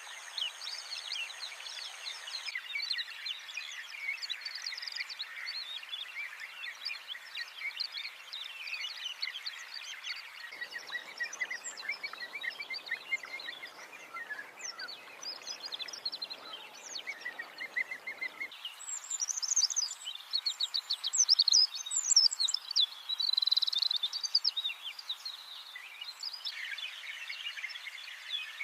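A dense chorus of many wild birds chirping and trilling over one another, with the background changing abruptly a few times; the calls grow louder and higher in a stretch after the middle.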